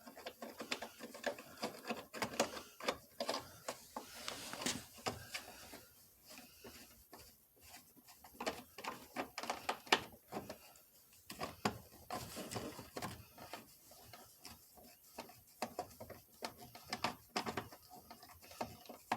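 Screws being driven by hand into a plastic steering column shroud: a long run of irregular small clicks and taps from the tool and screws.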